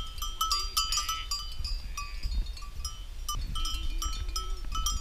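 Sheep bells clinking over and over, each strike ringing on at the same few pitches, as the sheep graze and jostle. A faint wavering sheep bleat comes about three and a half seconds in.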